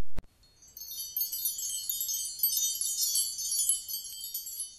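High, tinkling wind-chime shimmer, a transition sound effect for a flashback. It starts about a second in and thins out near the end.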